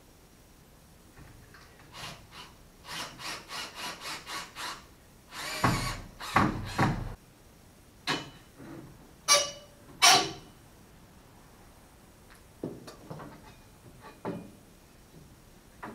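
Pocket-door frame being worked loose and pulled out of the wall: a run of quick scraping strokes, a louder scrape and rattle, then two sharp ringing metal clanks in quick succession, and a few lighter knocks near the end.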